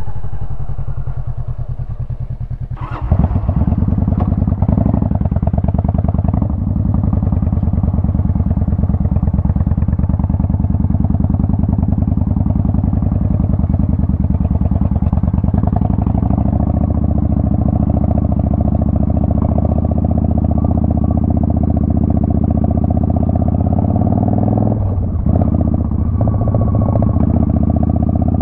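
Motorcycle engine running with a steady, rapid pulsing beat. About three seconds in there is a sharp knock, and from then on the engine runs louder and fuller.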